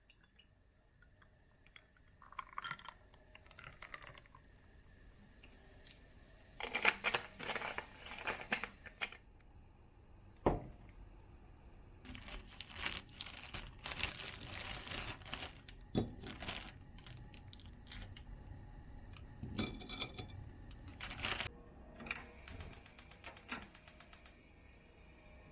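Handling sounds: spells of rustling and crinkling with single sharp clicks and knocks, a loud knock about ten seconds in, and a fast run of even ticks near the end.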